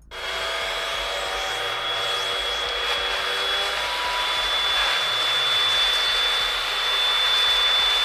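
Hoover WindTunnel UH70120 bagless upright vacuum running with a steady high whine, sucking through its hose and edger tool along the carpet edge at the baseboard. The sound comes in suddenly right at the start.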